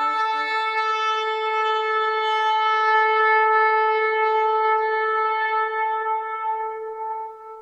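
A horn blown in one long held note, starting briefly on a lower note and stepping up, then fading out near the end.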